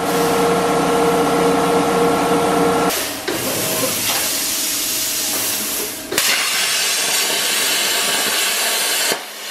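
CNC plasma cutter torch hissing as compressed air blows through it and the arc cuts sheet metal. A steady hum sits under the hiss for the first few seconds. The sound changes at about three seconds, a sharp click near six seconds brings a brighter, higher hiss, and the hiss drops out briefly near the end.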